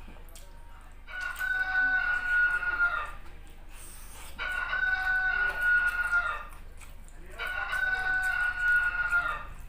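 Rooster-crow ringtone on a mobile phone: three identical crows about three seconds apart.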